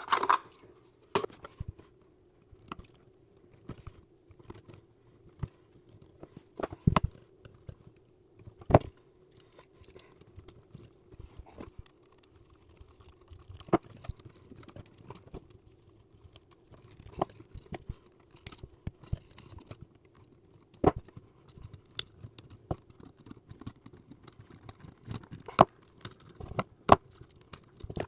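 Irregular small clicks, taps and knocks of hand work on electrical wiring and outlets, with a faint steady hum underneath.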